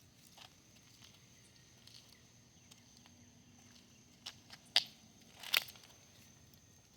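Footsteps crunching on the ground during a walk: quiet at first over a faint steady hum, then a few crisp crunches between about four and six seconds in.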